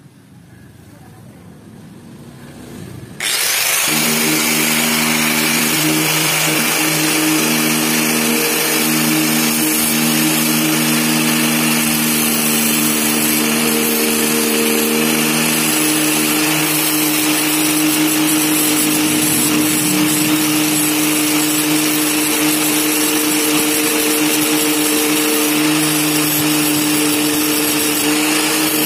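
Electric angle grinder fitted with a tile-cutting disc switches on abruptly about three seconds in and runs steadily, a loud hiss over a steady motor hum.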